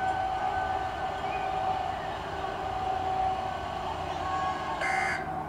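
Outdoor tornado warning siren sounding a steady tone. A brief high-pitched sound comes about five seconds in.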